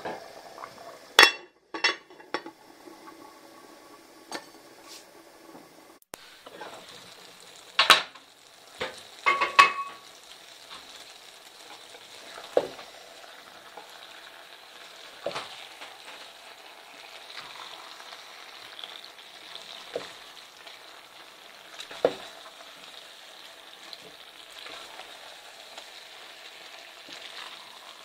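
A wooden spatula stirs rice in a large metal pot over a steady sizzle, knocking against the pot every few seconds. There are a few sharp metal clanks in the first couple of seconds, and a cluster of knocks about eight to ten seconds in.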